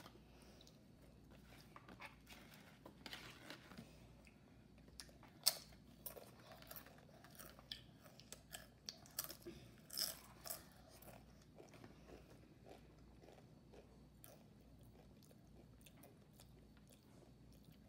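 Faint crunching and chewing of a spicy Doritos tortilla chip: scattered crisp crunches over about the first ten seconds, the loudest about five and a half and ten seconds in, then dying away.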